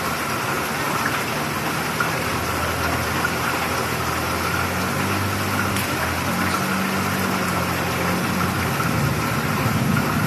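Heavy rain falling steadily onto a flooded street, an even hiss throughout. From about four seconds in, a motor scooter's engine hums as it rides slowly through the standing water.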